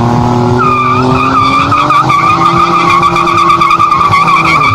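A car doing a burnout: the tyres squeal in a loud, wavering screech while the engine is held at high revs. The engine note climbs slowly and levels off, and the squeal and the engine cut off suddenly near the end.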